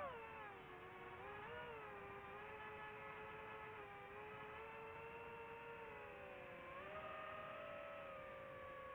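DJI FPV quadcopter's motors and propellers whining, several pitches moving together with the throttle: dropping just after the start, then rising to a higher, steadier pitch about seven seconds in.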